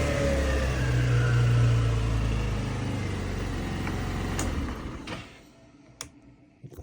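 GY6 150cc scooter engine on its stock exhaust, settling down from a rev and running steadily, then stopping about five seconds in. A couple of faint clicks follow.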